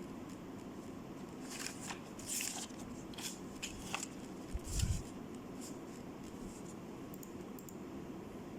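A few scattered clicks and rustles, as of small objects being handled, about one and a half to five seconds in, with one low thump near the end of them. A steady low hum runs underneath.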